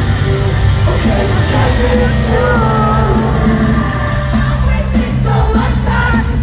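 Live rock music played loud through a concert PA, with sung vocals over electric guitar and heavy bass. The singing comes in twice, about two seconds in and again near the end.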